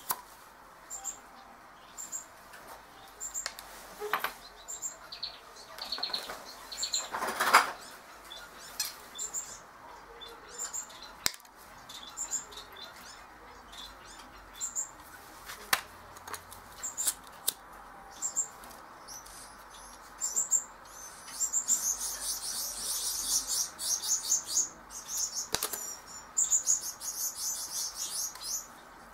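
Pet budgerigars chirping: short high chirps about once a second, breaking into several seconds of rapid chatter about two-thirds of the way in. Scattered clicks and knocks from hand tools and a plastic syringe being worked, the loudest about a quarter of the way in.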